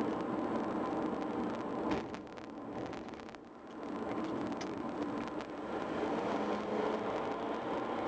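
Road noise inside a moving car: a steady hiss of tyres and engine that dips about two seconds in and comes back up at about four seconds.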